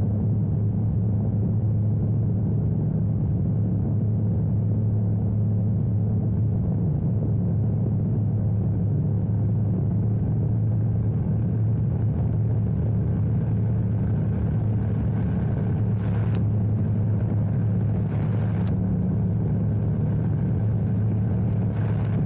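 Badland F3 ultralight's engine and propeller running steadily in cruise flight: a constant low drone, with wind rushing past the open airframe. A few short hissing rushes come in the second half.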